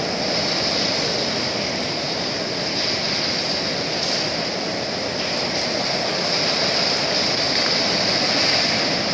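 Steady, unbroken metalworking noise in a welding shop: a continuous hiss with no distinct strikes or pauses.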